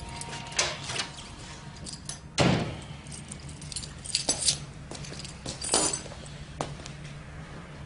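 A bunch of keys jangling, among several sharp knocks and clicks, the loudest a single knock about two and a half seconds in.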